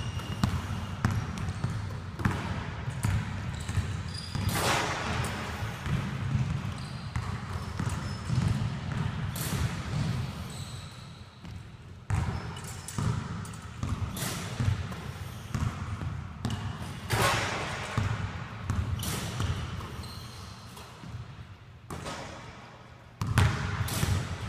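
Basketballs bouncing on a hardwood gym floor during a shooting drill: many dull thuds with several sharper impacts of ball on rim or backboard, in a large echoing gym.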